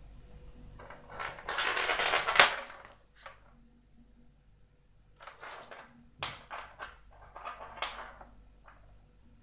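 A walnut batted by a kitten, rolling and clattering over a ceramic tile floor. There is one long rattling roll of about two seconds ending in a sharp knock, then several shorter scuffling rolls in the second half.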